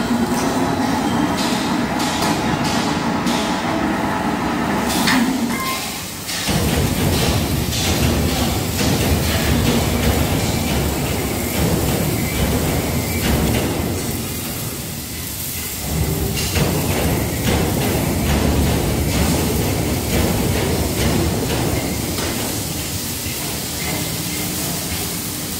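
Hydraulic decoiler machinery running: a steady mechanical hum with ticking and clanking, turning into a heavier rumble about six seconds in.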